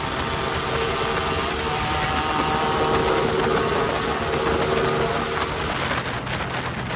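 Motorcycle engine running steadily at highway speed, under a rush of wind and road noise. A faint engine tone is clearest in the middle seconds and fades after about five seconds.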